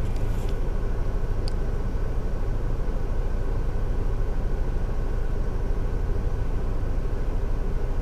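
Steady low rumble of an engine idling, with one faint click about one and a half seconds in.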